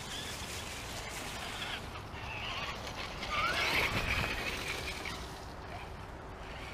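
Electric motor and gear whine of a radio-controlled rock crawler driving along a dirt trail, rising and falling in spurts with the throttle and loudest a little past the middle.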